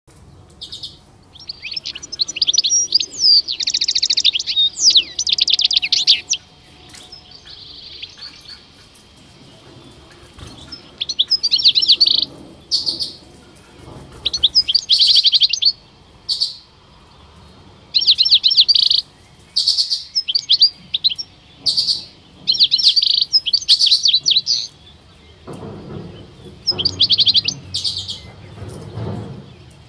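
Male European goldfinches singing: repeated bursts of rapid, high twittering, some a second long and some running on for several seconds, with short pauses between. A low rustling noise comes in near the end.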